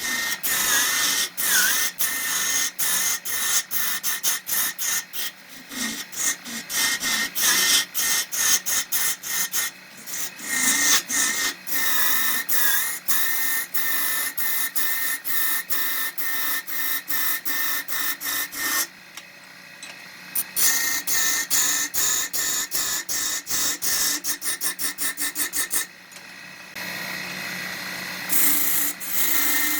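Wood being cut on a spinning wood lathe with a hand turning tool: a scraping, rasping cut in rapid, irregular strokes over a wavering high whine. It drops quieter briefly about two-thirds of the way through, and again near the end.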